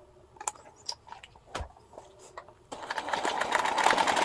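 Electric sewing machine stitching through layered denim: a rapid, even run of stitches that starts a little under three seconds in and carries on to the end. Before it come a few light clicks and a soft knock.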